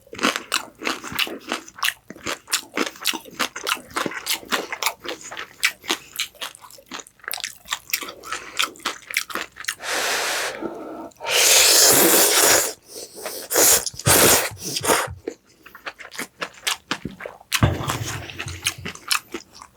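Close-miked chewing of crisp fried food: rapid crunches for about ten seconds. Around ten seconds in comes a louder noisy stretch lasting about two seconds, then a few shorter ones.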